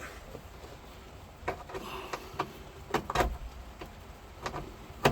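Hand-work noises on a car's glove box liner and dash: a scattered handful of sharp clicks and knocks, with a brief rustle about two seconds in.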